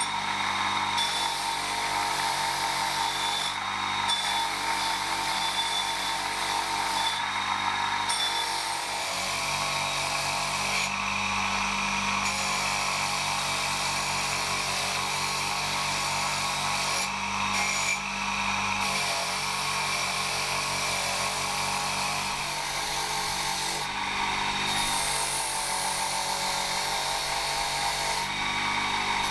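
Wire wheel on an electric bench motor spinning steadily while the rusty steel head of a pickaxe is pressed against it: a continuous motor hum under a harsh scratching hiss as the bristles strip the rust. The high scratching drops out briefly several times.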